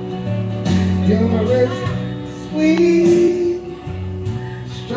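A man singing karaoke into a handheld microphone over a backing track with a steady bass line, holding long notes.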